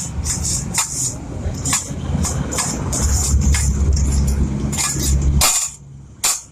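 Repeated sharp metallic taps, irregular at about two a second, over a steady low mechanical hum that cuts off about five and a half seconds in.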